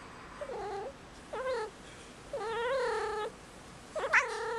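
Five-month-old female kitten in heat yowling: four drawn-out calls, the third the longest and the last the loudest. This is the calling of a female cat in heat.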